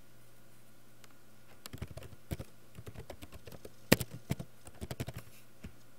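Computer keyboard typing: an irregular run of key clicks that starts a little under two seconds in, with one louder key strike about four seconds in.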